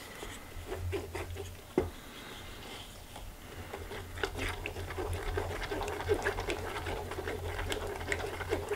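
Wooden spoon scraping and pressing thick tomato sauce through a fine mesh strainer: a soft, irregular scrubbing with small clicks and one sharp knock a little under two seconds in, over a low steady hum.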